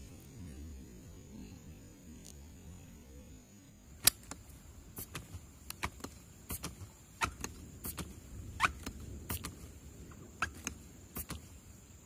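Irregular sharp clicks and short squeaks of a pump air rifle being handled and pumped after a shot, starting about four seconds in.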